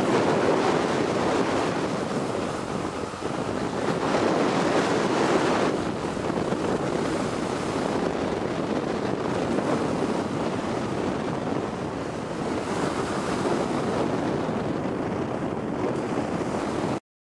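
Strong wind buffeting the camera microphone over breaking surf, a rushing noise that swells and eases. It cuts off abruptly near the end.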